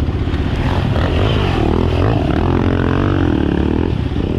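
Enduro motorcycle engine running at low speed through mud, its note rising and falling as the throttle is worked.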